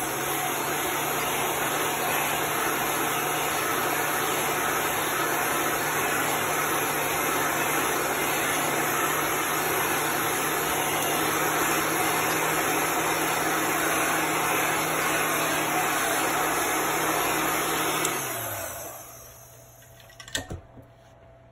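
Handheld dryer blowing air to dry wet chalk paste: a steady rushing whoosh with a low motor hum. It is switched off about 18 seconds in, and the hum falls away as the motor winds down.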